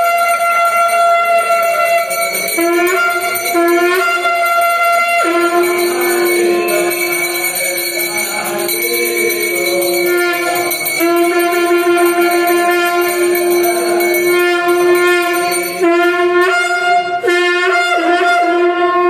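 Conch shell (shankh) blown in long, steady, horn-like blasts at one pitch. The blasts break off briefly and start again several times, and the last few seconds hold shorter, choppier blasts.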